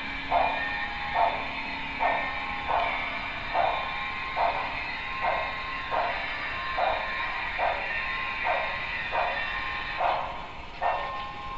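Sound-equipped HO-scale Broadway Limited Paragon 3 2-10-4 steam locomotive model chuffing through its small onboard speaker, a steady beat of about one chuff a second over a constant hiss.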